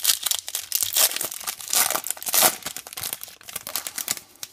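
Foil trading-card pack (2015 Star Wars High Tek) being torn open and crinkled in the hands: a dense run of crackling, loudest about two seconds in.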